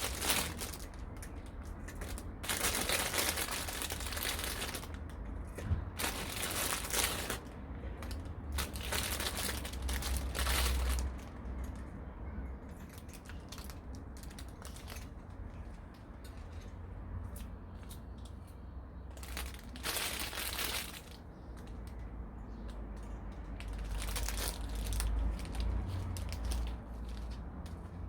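Rustling and crinkling of packaging being handled, likely bird food being dealt with as feeders are filled, in several bursts a few seconds apart over a low steady rumble.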